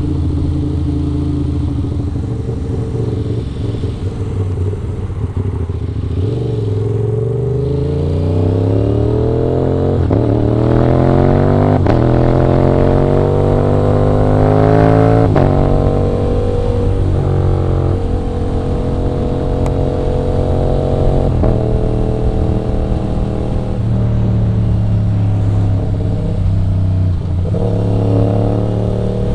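Aprilia RS 660's 659 cc parallel-twin engine under way. The revs hold steady at first, then climb for several seconds with a brief break partway. The revs fall back about halfway through, and the engine then runs at a fairly steady pace with small throttle changes.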